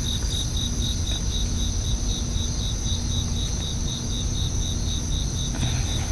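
Crickets chirping: a high chirp pulsing evenly about three times a second over a continuous high insect trill, with a low steady rumble underneath.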